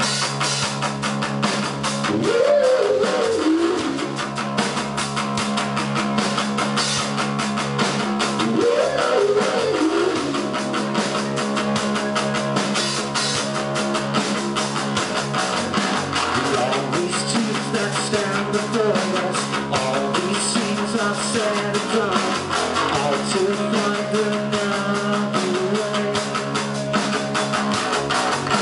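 Live rock band playing a song: electric guitars, bass and a drum kit, loud and continuous.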